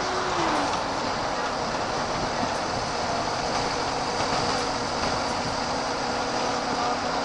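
VDL SB120 Wright Cadet single-deck bus heard from inside while under way: engine and road noise running steadily, with a whining tone that drops in pitch about half a second in and then holds steady.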